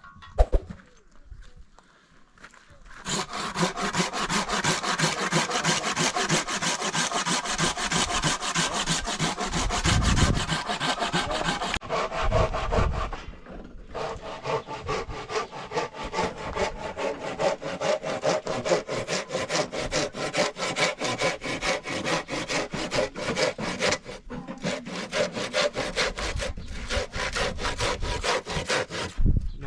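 Wood being sawn with rapid, continuous back-and-forth strokes, starting about three seconds in and easing off briefly twice.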